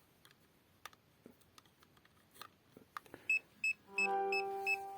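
Handheld EMF meter alarm beeping rapidly, short high beeps about three a second, starting about three seconds in: the meter is set off by the electromagnetic field of the USB AC/DC adapter held near it. A few faint clicks come before, and a steady lower tone joins about four seconds in.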